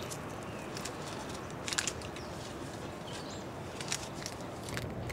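Steady outdoor background noise with a few brief, sharp, high-pitched ticks, the loudest cluster a little under two seconds in.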